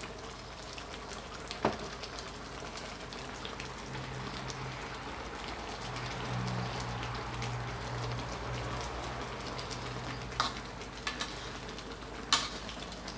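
Coconut-milk curry bubbling in a metal wok with a steady hiss. A metal spatula stirs it, with a few sharp clicks against the wok: one about two seconds in and several near the end.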